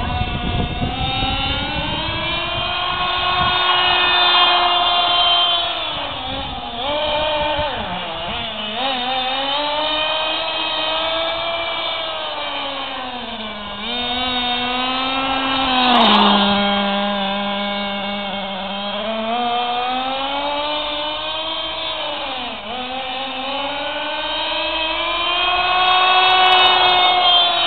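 Ansmann Vapor RC buggy's small nitro engine running as the buggy is driven, its high whine rising and falling in pitch as it accelerates, backs off and passes by. About 16 s in it settles to a steady lower note for a few seconds, then revs up again.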